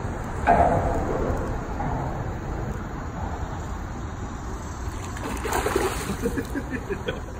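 A hooked fish thrashing and splashing at the water's surface, with a burst of splashing about five and a half seconds in and spray pattering back onto the water after it. A sharp loud sound comes about half a second in.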